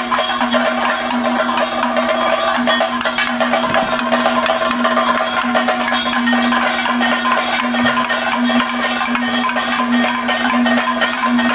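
Kathakali percussion ensemble, chenda and maddalam drums with small hand cymbals, playing a fast, dense rhythm over a steady drone, with no singing.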